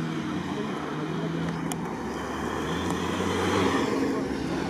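Jeep Wrangler Rubicon engine revving while it drives through soft sand, its pitch rising and falling with the throttle. A sharp click comes about a second and a half in.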